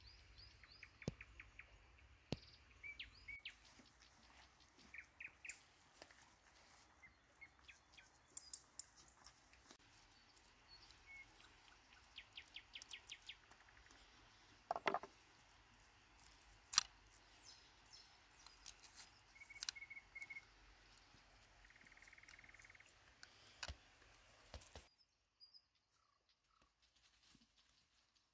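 Faint birdsong: small birds chirping and trilling in a forest, with a few sharp clicks and knocks. The sound almost drops out near the end.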